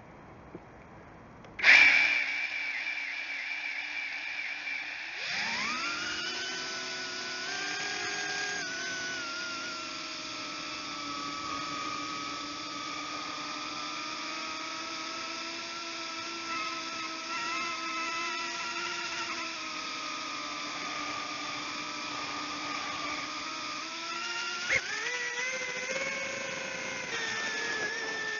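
Brushless motors and propellers of a 135 mm FPV drone, picked up by its onboard camera: the motors start suddenly about two seconds in, climb sharply in pitch a few seconds later, then whine at a shifting pitch as the throttle changes, with a click and a quick rise in pitch near the end.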